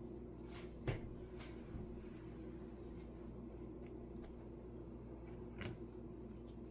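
Quiet kitchen handling noises: a sharp knock about a second in, a softer one near six seconds and a few faint clicks, over a steady low hum.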